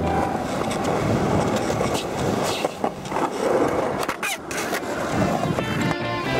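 Skateboard wheels rolling and carving on smooth concrete, a continuous rough rumble broken by a few sharp clacks of the board hitting the concrete, the loudest around the middle.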